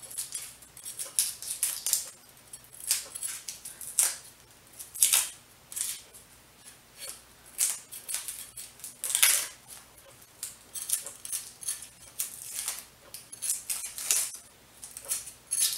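A knife and hands working raw onions: irregular crisp crackles and snips of papery onion skin and flesh being peeled and cut, a few every second, the loudest about 5 and 9 seconds in.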